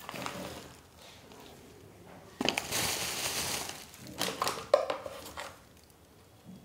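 Crinkling, rustling handling of a spice packet, loudest for about a second in the middle, followed by a few shorter crackles.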